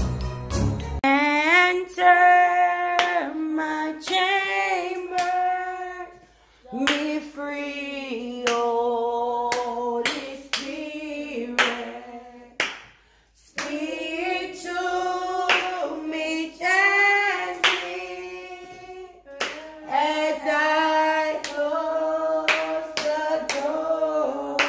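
A voice singing a slow worship song in sung phrases with short pauses, with hands clapping in a steady beat. The end of an instrumental intro tune is heard in the first second.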